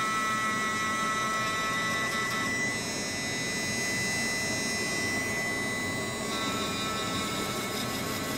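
Small handheld electric rotary tool (micro-motor handpiece with a fine bit) running with a steady high whine as it smooths a cured epoxy putty part. The tone changes between about two and a half and six seconds in, then returns.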